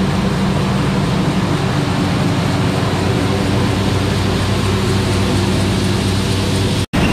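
John Deere S670 combine running steadily while it unloads black beans from its grain bin through the unloading auger into a semi trailer: a constant engine hum under a dense rushing noise. The sound cuts out for an instant near the end.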